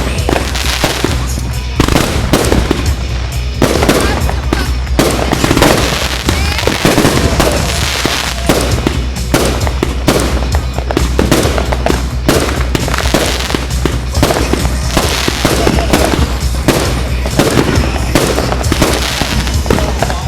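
Fireworks going off in rapid succession, a dense run of bangs and crackles with no break, over music.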